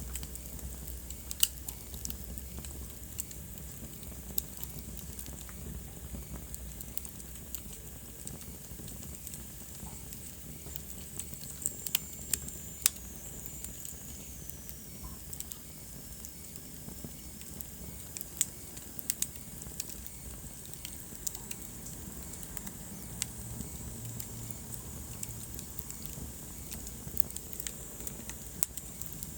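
Wood fire burning in a fireplace, crackling with irregular sharp pops over a low steady rumble of flames. A faint high whistle falls in pitch about halfway through.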